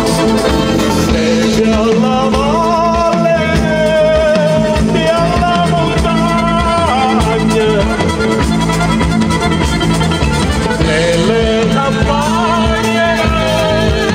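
Live folk band playing an upbeat song, with women singing over accordion, guitar and hand drums with a drum kit.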